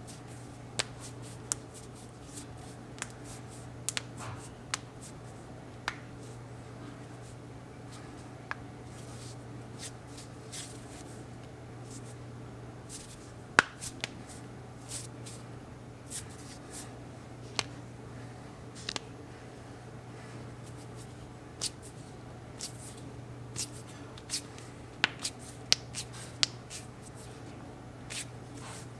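Knuckles cracking: scattered sharp pops at uneven intervals, one every second or two, a few louder than the rest, over a steady low hum.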